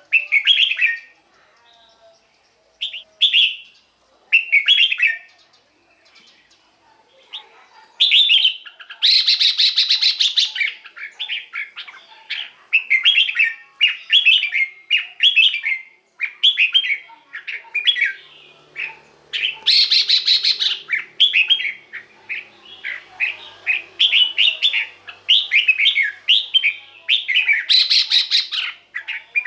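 Red-whiskered bulbul song: short, bright warbled phrases, a few spaced out at first, then strung together almost without a break from about eight seconds in. Three louder, scratchier bursts are mixed in.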